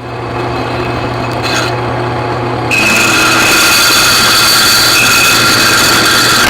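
A power tool's motor starts running, and about three seconds in it bites into a small steel bar, the cutting becoming louder and harsher with a high ringing whine that holds steady as it cuts the bar in half.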